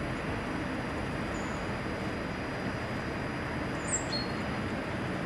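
Steady outdoor background noise with a few short, high bird chirps, one about one and a half seconds in and a pair about four seconds in.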